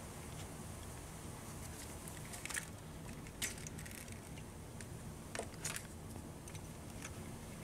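A few light clicks and knocks from handling an air-conditioning refrigerant line and its metal fitting under the hood, over a steady low hum.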